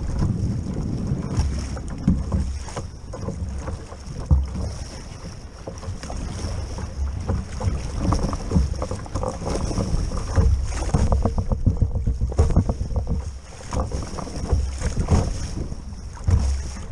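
Kayak paddle strokes splashing in choppy sea water, with water washing against the plastic hull. Wind rumbles on the microphone throughout.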